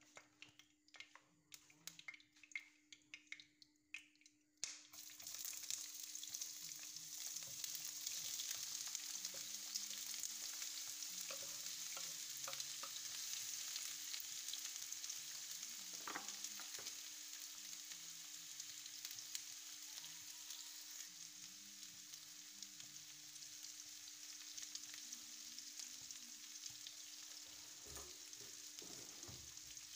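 Sliced red onions frying in a little oil in a frying pan. After a few faint crackles, a steady sizzle starts suddenly about five seconds in and slowly eases off.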